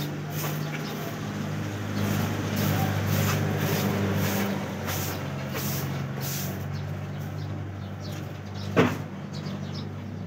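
A soft grass broom sweeping a floor in repeated short swishes, over a steady low hum. One sharp knock about nine seconds in.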